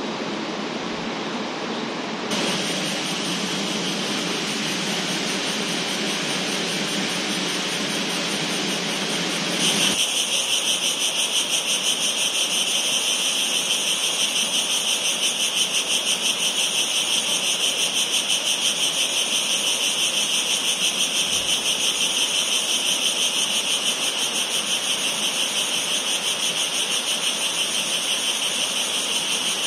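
A steady rushing noise, then about ten seconds in a loud evening insect chorus takes over: a high, evenly pulsing buzz that holds steady.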